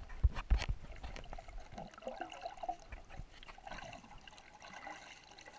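Muffled underwater gurgling and bubbling of moving water, with a few knocks in the first second.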